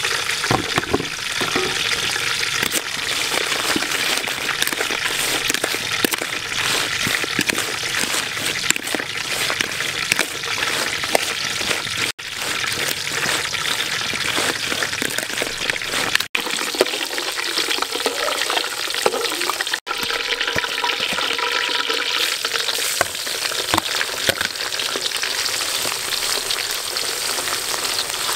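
Spiders frying in hot oil in a wok: a steady sizzle with dense crackling, with stirring. The sound breaks off abruptly three times and resumes.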